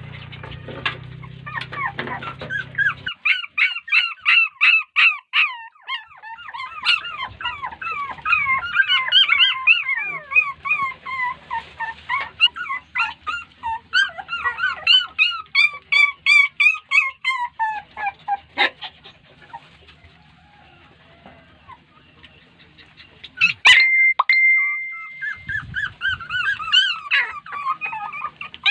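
A litter of young puppies crying in fast runs of high-pitched whines and yelps, hungry for a mother dog who is not feeding them. The cries stop for a few seconds past the middle. A sharp knock and a short steady high tone come just before the crying starts again.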